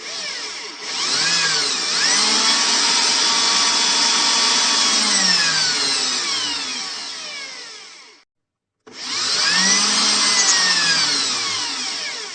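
Electric power drill (mesin bor) run twice: its motor whines up to speed, runs for several seconds and winds down, then starts again after a short pause and runs up and down once more.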